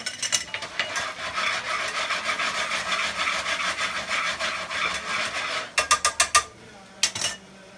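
Metal tongs scraping and stirring shallot and garlic frying in butter in a skillet: a steady raspy scraping for about five seconds, then a quick run of sharp clicks as the tongs clack against the pan, and a few more clicks near the end.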